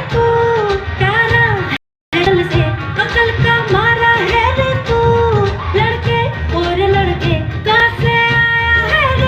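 Bollywood-style song with a woman singing over a steady beat. The sound cuts out completely for a moment about two seconds in.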